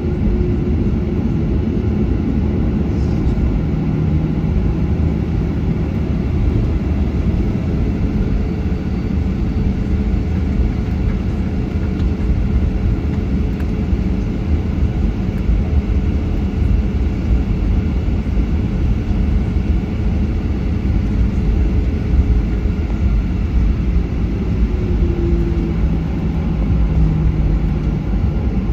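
Steady cabin rumble of a Boeing 737-800 from its CFM56 jet engines and the airflow around the fuselage, with a faint steady hum over the low roar and no change in power.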